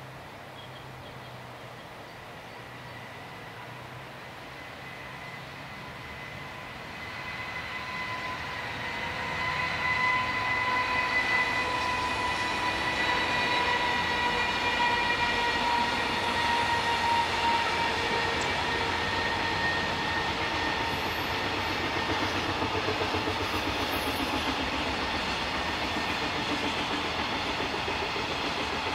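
JR Freight train hauled by an EF210 electric locomotive passing close by: a steady whine builds as it approaches and grows loud about ten seconds in. The rhythmic clickety-clack of its container and tank wagons rolling over the rail joints follows.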